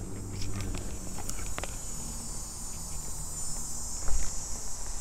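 Insects chirring in a steady high-pitched chorus that swells a little past the middle, with a few light clicks and a low bump about four seconds in.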